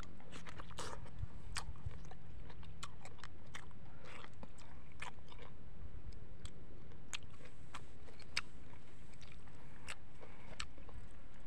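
Mouth noises of a ripe yellow mango being bitten into and eaten: scattered sharp clicks and wet smacks of chewing and sucking the soft flesh.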